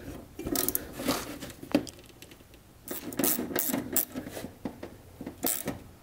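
Socket ratchet clicking in several short bursts of rapid clicks as a 1/2-inch socket tightens the battery cable nut onto a starter solenoid terminal.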